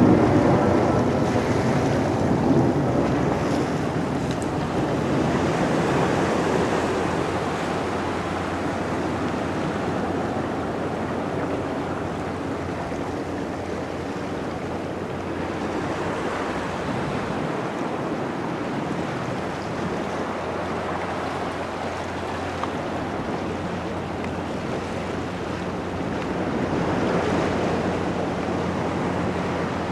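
Ocean surf washing steadily onto a beach, with wind on the microphone; the wash swells gently twice.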